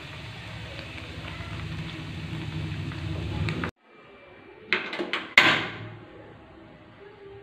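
Food cooking in a frying pan on a gas stove: a steady hiss with a low hum that cuts off abruptly a little over halfway. After the cut come a few sharp knocks of a metal spatula against the pan and a louder rush that dies away over about half a second.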